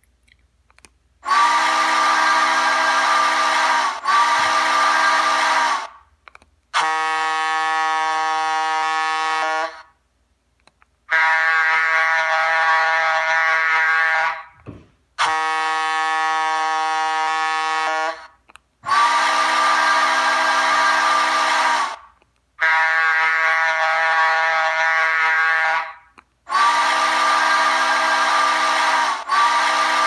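Recorded steam whistle sounds played through a small dual sugar-cube speaker, driven by an Adafruit Audio FX Mini soundboard and a 2.5 W mono amp. Seven blasts of three to four seconds each with short gaps between them. They alternate between a breathier, hissy chord and a cleaner, steadier tone, since the sound files are picked at random.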